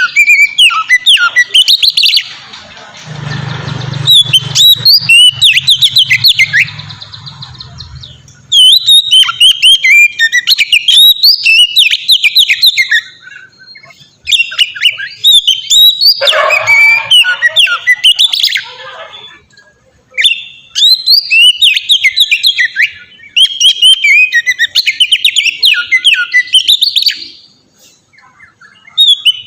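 Oriental magpie-robin (kacer) singing in full, loud song. Bouts of rapid, varied whistles and chirps are broken by short pauses, several times over.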